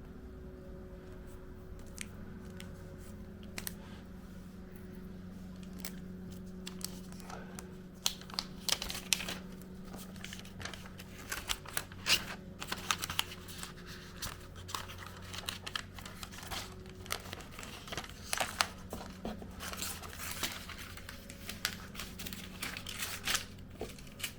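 Packaging of an AirPods Max box being handled and unwrapped: crinkling and tearing, with only a few scattered clicks at first, then busy from about eight seconds in until near the end, over a low steady hum.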